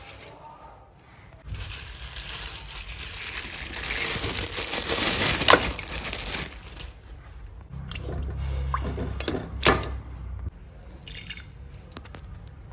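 Water running and splashing for several seconds, as at a sink or when pouring, then a second shorter stretch of splashing with a sharp knock near its end.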